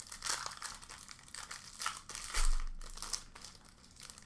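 Plastic trading-card pack wrapper crinkling as it is handled and opened, with a dull thump about two seconds in.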